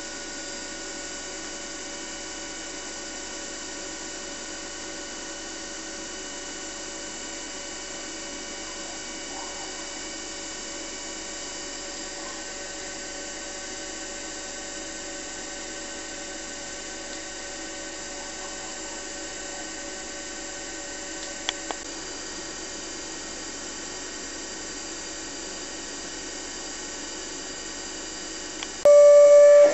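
Steady machine whine with several fixed pitches held throughout, with two faint clicks a little past the middle. About a second before the end, a much louder steady tone cuts in.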